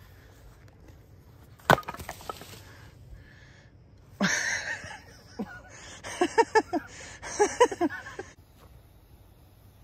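An axe splitting firewood. A sharp crack of a strike comes a little under two seconds in, then another strike with a splintering crackle about four seconds in, followed by a quick run of short hollow knocks.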